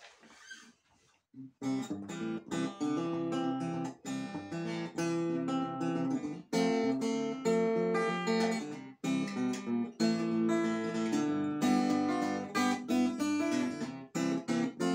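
Acoustic guitar fingerpicking a blues intro, with low notes under the picked higher notes; it starts about a second and a half in.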